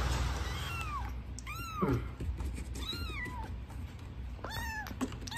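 Young kitten meowing: about five short, high meows, each rising and then falling in pitch, two of them close together near the end.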